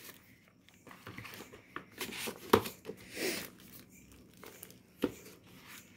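Hands handling a hardback book and the paper in its box: paper rustling and crinkling, with a sharp knock about two and a half seconds in.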